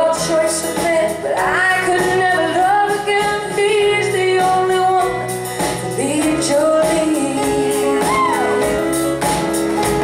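Live band with a group of women singing together, voices sliding up and down over electric bass and guitar.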